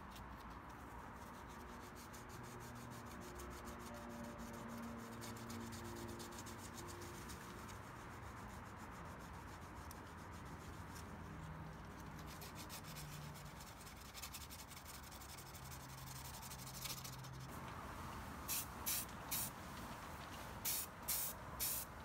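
Wet sandpaper rubbed by hand over a primed metal plate, a faint steady scrubbing. Near the end, a quick run of short sharp hisses comes in, about two or three a second.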